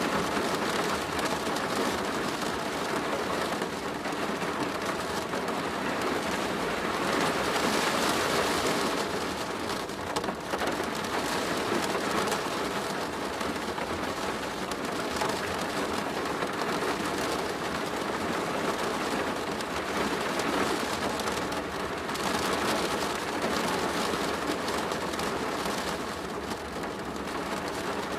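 Steady rain falling on a plastic roof, a dense even patter that swells a little in intensity a few times.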